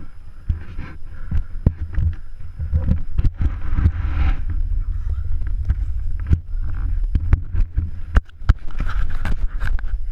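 Downhill mountain bike rattling over a rough forest trail, with irregular sharp knocks and clicks of chain slap and frame rattle, over a steady rumble of wind on the camera's microphone.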